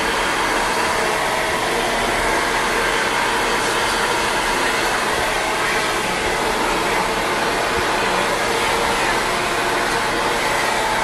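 Handheld hair dryer blowing steadily and loudly at a constant setting.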